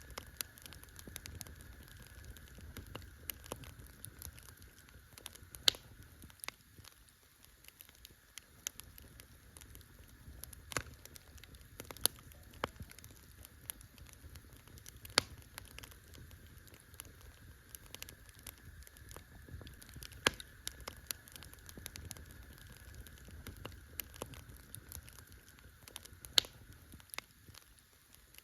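Wood campfire crackling, with irregular sharp pops and snaps over a low, steady rumble of the flames.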